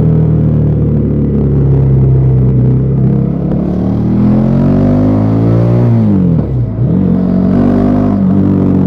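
Bajaj Pulsar NS400Z's single-cylinder engine through its stock exhaust, under way. The engine note holds steady, then climbs for a couple of seconds. Around six seconds in, it drops sharply with a brief dip, as on a throttle lift or gear change, then settles steady again.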